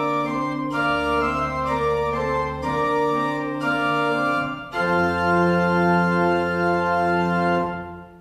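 Church organ playing sustained chords that change every second or two, ending on a final chord held for about three seconds that stops just before the end.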